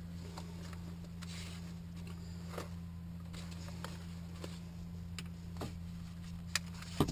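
Steady low electrical hum in the powered-up light aircraft's cockpit before engine start, with scattered small clicks and taps as things are handled, and a louder knock at the very end.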